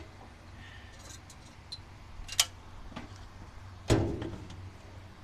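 Metal hand tools clicking and clanking against an engine: a few light ticks, a sharp click about two and a half seconds in, then a louder clank with a short ring about a second later as steel locking pliers (vice grips) come down on the aluminum intake manifold.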